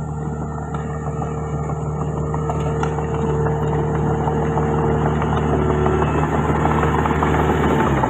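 Komatsu D31PX crawler bulldozer's diesel engine running at a steady pitch, growing slightly louder over the seconds.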